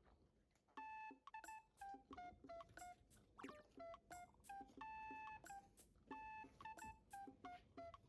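Faint run of short electronic beep tones at a few different pitches, several a second, each with a light click: an edited-in sound effect.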